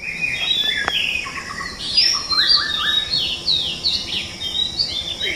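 Several birds chirping and singing in quick, overlapping short notes over a steady high hiss, a morning bird chorus.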